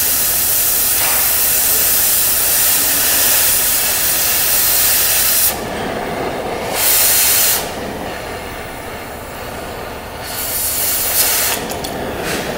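Oxy-acetylene cutting torch hissing loudly and steadily as it cuts steel plate. About five and a half seconds in the hiss drops to the softer sound of the flame alone, with one more brief loud blast near seven seconds.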